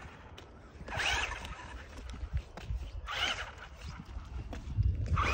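Toy RC buggy's small electric motor whining in short bursts as the throttle is blipped: three bursts about two seconds apart, about a second in, three seconds in and near the end.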